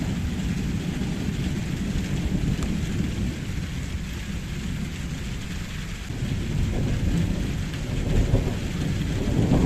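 Thunderstorm: heavy rain pouring down under continuous rolling thunder, the rumble easing a little midway and swelling again over the last few seconds.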